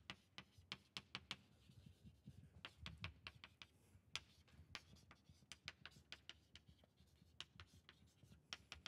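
Chalk writing on a blackboard: a faint, quick run of taps and short scratches as words are written out.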